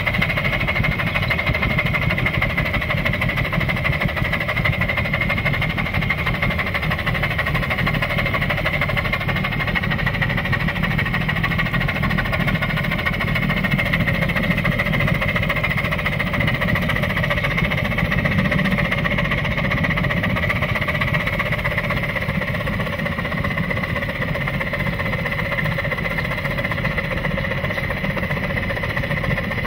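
Oil-fired 9-inch-gauge live steam locomotive working up grade at the head of a full passenger train, its exhaust barking in a rapid, steady beat.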